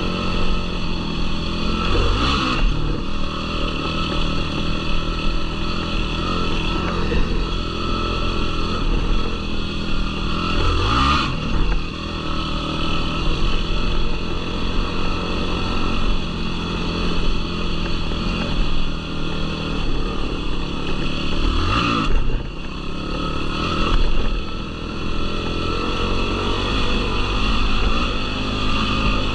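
Yamaha YFZ450R quad's single-cylinder four-stroke engine running under load on a trail ride, with the revs climbing sharply three times: about two seconds in, near the middle, and about two-thirds of the way through.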